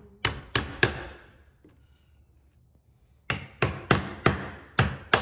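Hammer blows during door-lock installation: three quick strikes, a pause of about two seconds, then a run of about six more strikes.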